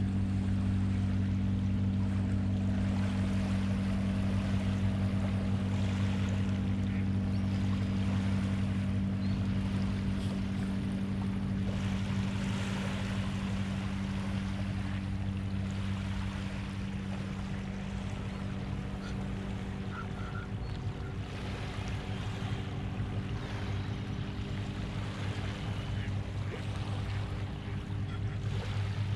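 Small waves lapping gently on the shore, swelling and fading every few seconds, over a steady low hum.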